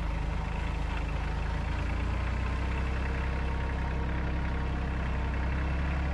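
Compact diesel tractor with a front-end loader, its engine running steadily as it drives, heard close up from the operator's seat.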